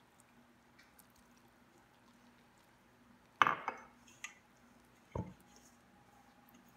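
A glass measuring cup clinks down onto a stone countertop about three and a half seconds in, followed a couple of seconds later by a duller knock against a stainless steel mixing bowl that rings faintly.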